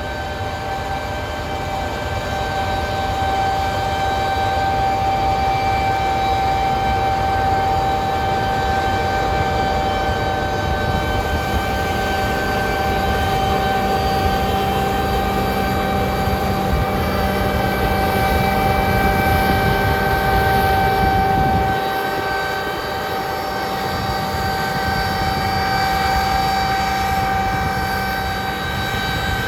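Combine harvester running at work with a Redekop seed control unit, its mills spinning at over 2,500 rpm and giving a steady, siren-like whine over the low rumble of the machine, which is meant to sound like that.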